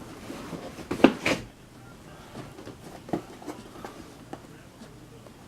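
Boxed diecast model cars and packaging being handled: two sharp knocks about a second in, then scattered lighter clicks and rustles.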